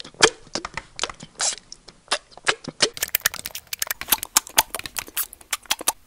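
Handling noise from a handheld recording device held right at the face: a rapid, irregular run of sharp clicks and taps on or at the microphone, growing denser about halfway through.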